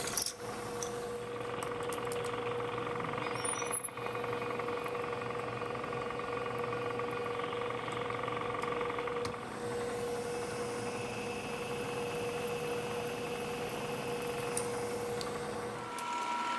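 Bridgeport vertical milling machine's spindle running steadily as it drills a hole in a bar of stock, a constant motor hum with brief dips about four seconds in and again near ten seconds. The spindle stops near the end.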